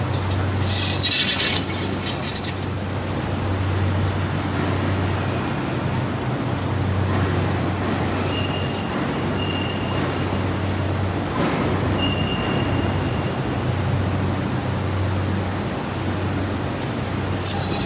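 CNC roll bending machine running with a steady low hum. The metal profile squeals loudly and shrilly against the rollers for about two seconds, starting about a second in, and again near the end.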